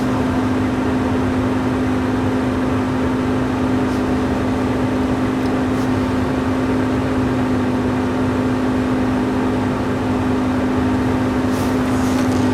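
1981 Cadillac Sedan Deville's heater blower motor running steadily on the defrost setting, an even hum with one strong steady tone. It is powered through a replacement blower motor resistor/power module.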